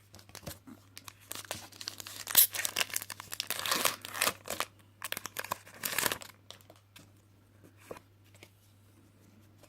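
A Pokémon TCG booster pack's foil wrapper being torn open and crinkled by hand, in a run of crackly rustles over about five seconds, the loudest near the middle and again near the end of that run, followed by a few faint taps as the cards are handled.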